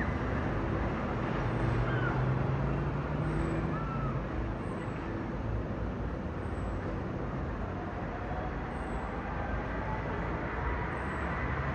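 Steady jet engine roar of a Boeing 777-200ER airliner flying overhead.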